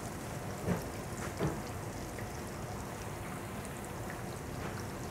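Breaded shrimp deep-frying in a basket in a commercial fryer with the oil at 350 degrees: a steady sizzle of bubbling oil, with a couple of louder pops in the first second and a half.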